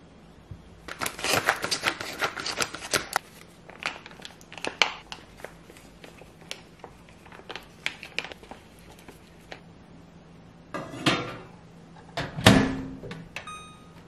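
Kitchen handling sounds: a quick flurry of light clicks and knocks of dishes and containers, then scattered taps, with two louder clatters near the end. A few short electronic beeps, like an appliance keypad being pressed, come right at the end over a faint steady hum.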